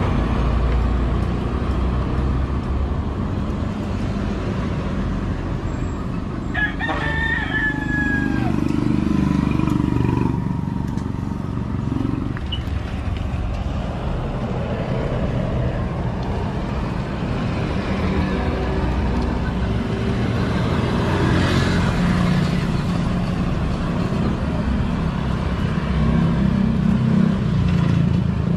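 Steady low rumble of road traffic, with a rooster crowing once about seven seconds in: a long call of about two seconds that bends down at its end.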